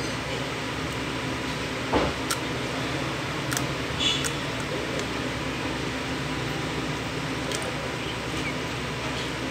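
Steady mechanical hum, like a running fan, with a few small sharp clicks as fingers pick shell off a hatching peacock egg. The loudest click is about two seconds in, and a brief high note comes about four seconds in.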